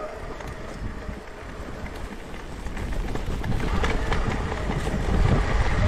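Wind rumbling on the microphone and mountain bike tyres rolling over rough ground, with the bike rattling and clicking. It gets louder about halfway through.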